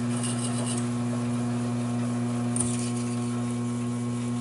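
Taig micro lathe running under its Sherline motor with a steady hum, while a parting blade is hand-fed into a 1-inch 1018 steel bar, close to cutting through. A faint high hiss comes twice, near the start and about halfway.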